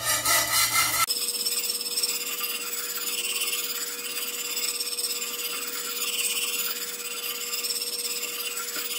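Coarse 120-grit diamond plate on a guided-sharpener rod scrubbed back and forth along the steel edge of a Maestro Wu G-4 fish cleaver, a continuous rasping rub as a burr is raised on the second side.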